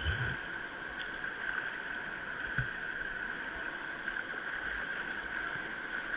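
Steady rush of a mountain stream's whitewater, with a couple of soft low thumps.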